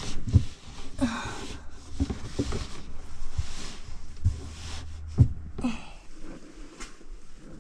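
Canvas drop cloth rustling and being bunched as it is spread and tucked into the floor of a sink cabinet, with several soft thumps of handling against the cabinet.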